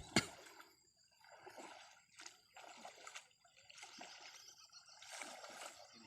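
Floodwater splashing and sloshing in uneven bursts from movement through it, with two sharp knocks right at the start.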